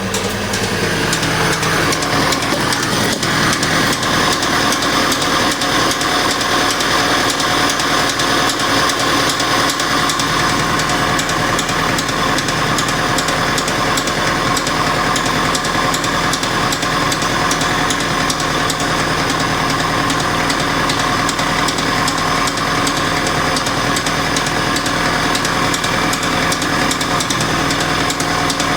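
VAZ-2101 four-cylinder petrol engine running at a steady speed with a rapid, regular knock, which the owner traced to a worn piston pin.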